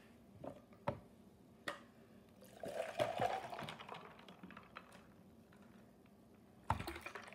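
Liquid being poured into a cup for about a second and a half, starting between two and three seconds in, with a few light knocks and clicks before it and a short clatter near the end.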